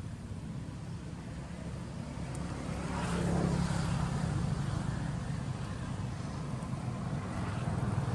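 A motor vehicle's engine running steadily, growing louder about three seconds in as it passes close by, then staying louder.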